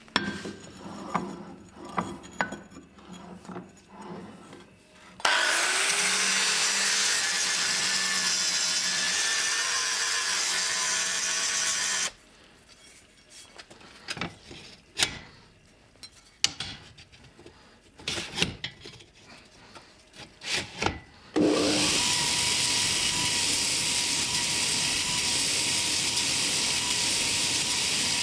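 A power tool runs in two long stretches of about seven seconds each, starting and stopping abruptly, with knocks and clatter of workpieces being handled in between.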